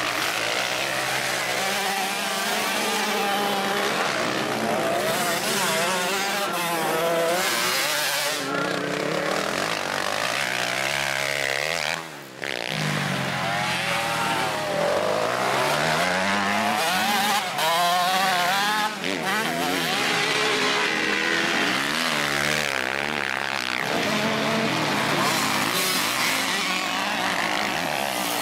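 Several motocross bike engines revving hard as the bikes ride through a corner one after another. Their pitch rises and falls with each twist of the throttle and each gear change. The sound drops out briefly about twelve seconds in.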